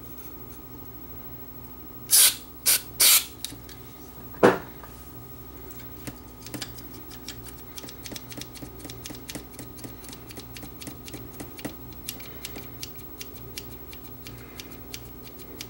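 Aerosol contact cleaner sprayed in four short hissing bursts onto the switches of a vintage cassette deck, between about two and four and a half seconds in, followed by many light, irregular clicks as the parts are handled.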